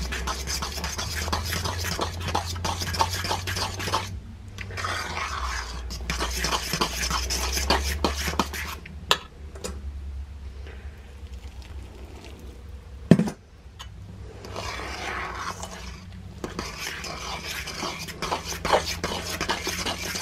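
Metal utensil stirring and scraping thick instant mashed potatoes against a stainless steel bowl, in bursts with short pauses, with one sharp knock about thirteen seconds in. A low steady hum runs underneath.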